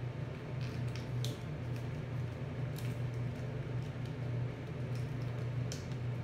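Shiny adhesive sticker film crinkling as it is folded and pressed over a styrofoam block. A few sharp crackles come about a second in, near three seconds and near the end, over a steady low hum.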